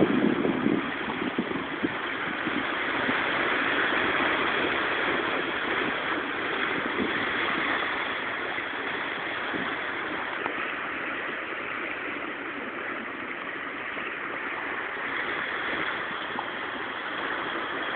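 Sea water washing against a rocky shore, a steady hiss of surf, with a few low bumps in the first second.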